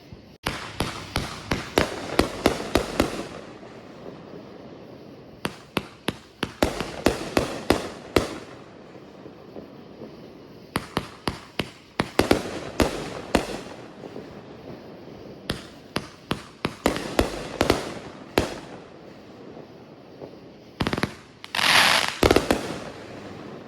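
Fireworks going off in rapid volleys of sharp cracks, four bursts of a few seconds each with short pauses between, then a loud hissing burst near the end.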